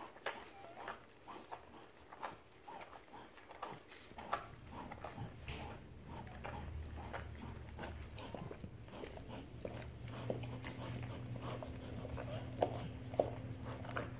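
Mother dog licking and cleaning her newborn puppies: a run of short, wet clicking mouth sounds. A low steady hum sets in about four seconds in and grows stronger towards the end.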